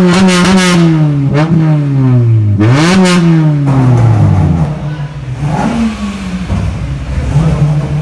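Car engine revved hard and held, stuttering at the rev limiter, then let go. The revs fall away, are blipped up once more and drop back. Near the end the engine is held at steady high revs again.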